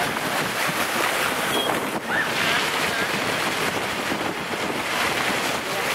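Floodwater washing and sloshing in a steady rush, with wind buffeting the microphone.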